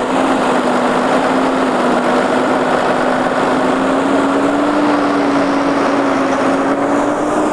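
Tractor engine running steadily beside a loaded potato trailer, its pitch creeping up a little about halfway through and then holding.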